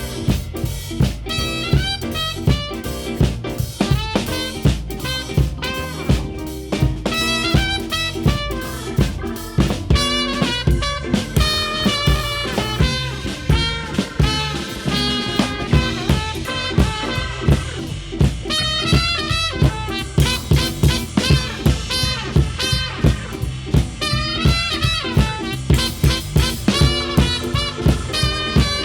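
Live blues band playing an instrumental swing passage: a drum kit keeps a steady beat under a wavering horn lead.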